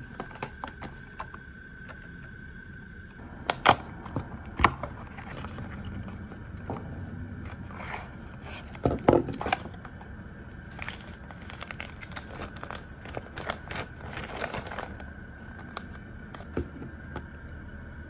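The paper insert and packaging of a Revlon hair-dye kit being handled and opened out: irregular crinkling and rustling with several sharp knocks, the loudest about 4 and 9 seconds in.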